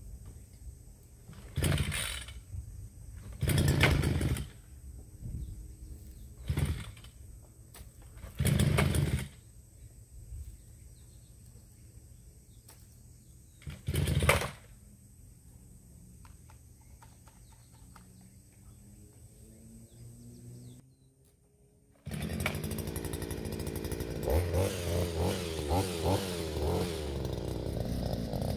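A 43cc two-stroke engine on a pole hedge trimmer being pull-started on its recoil starter: five short bursts of cranking a few seconds apart. After a brief gap about 22 seconds in, the engine runs steadily, its revs rising and falling.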